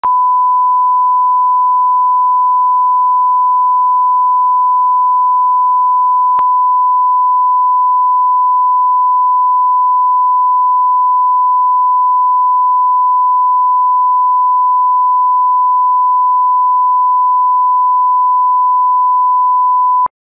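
Steady 1 kHz line-up test tone, the reference tone that goes with broadcast colour bars for setting audio levels. One unbroken pure tone with a faint click about six seconds in, cutting off abruptly near the end.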